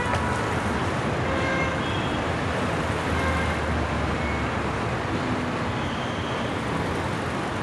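Steady city street traffic noise, with a few faint short high tones here and there.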